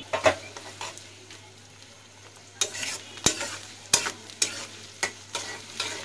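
Sliced onion and garlic frying in hot mustard oil in a karai, sizzling steadily. From about two and a half seconds in, a metal spatula stirs them with repeated sharp scraping knocks against the pan, roughly twice a second.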